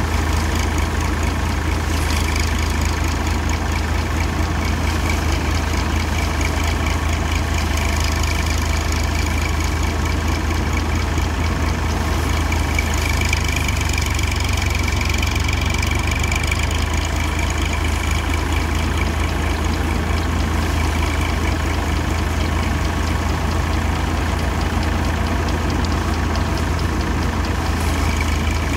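Tractor engine running steadily at constant speed to drive a paddy threshing machine, a deep even drone with a slight change in tone about halfway through.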